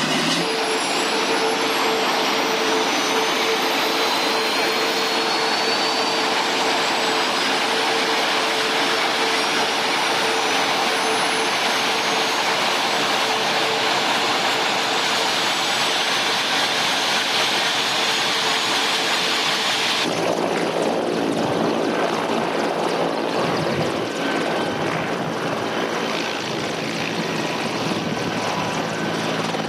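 Mil Mi-24 Hind helicopter's turboshaft engines running up: a loud hiss with a steady whine, and a high whine rising slowly over the first several seconds as the rotor comes up to speed. About twenty seconds in the sound changes abruptly to a lower, rougher engine and rotor sound.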